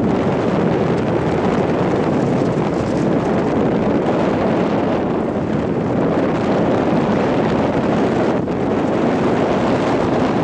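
Kubota KX057-4 mini excavator's diesel engine running steadily, with wind buffeting the microphone.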